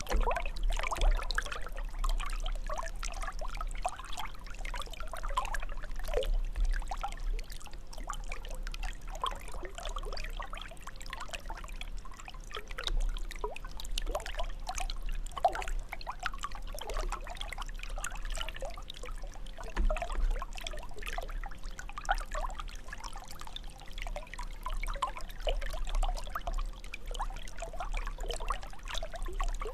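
Fountain's water jet falling and splashing into water, an uneven, continuous pouring and trickling, with a steady low rumble underneath.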